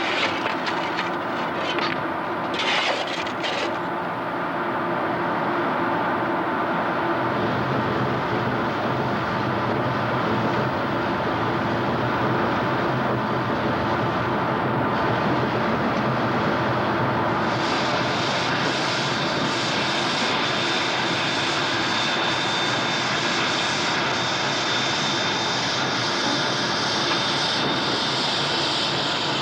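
Steam train running: a loud, steady roar. A few clicks come in the first seconds, and a high hiss joins a little past halfway.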